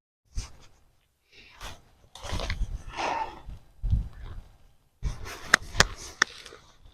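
Hands digging through loose soil in a grow bag, rustling and scraping in irregular bursts with some dull thumps, and a few sharp clicks about five to six seconds in.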